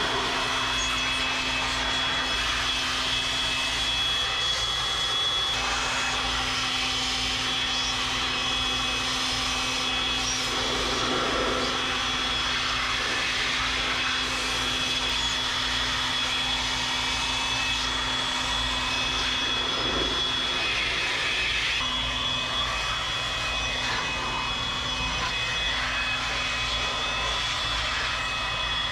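Steady machine hum and whir, with a constant high whine over it, typical of running air-conditioning package units. The whine drops out briefly about five seconds in and again near the end.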